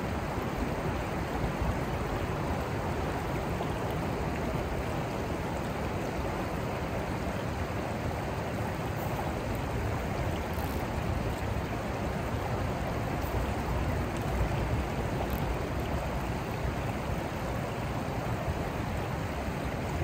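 Steady rush of a rocky mountain river flowing over stones and through riffles.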